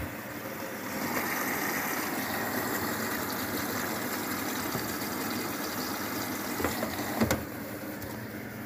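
Luxor WM 1042 washing machine starting its Cotton 90°C drum-clean cycle: a steady rushing hiss of water filling the machine begins about a second in. Near the end come a couple of sharp clicks, and the sound then drops lower.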